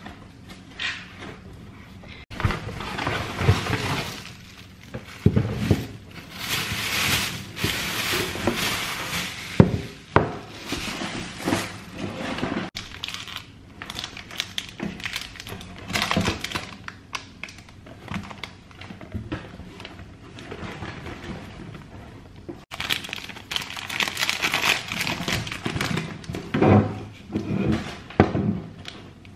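Brita Marella water filter jug being unpacked and put together: plastic wrapping crinkling and rustling in long stretches, broken by sharp knocks of the plastic jug and its parts on the table.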